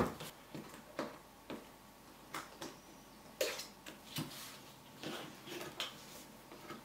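A white paper watch box being opened by hand on a desk: one sharp knock as it is set down at the start, then faint, scattered clicks and rustles of paper flaps being folded open.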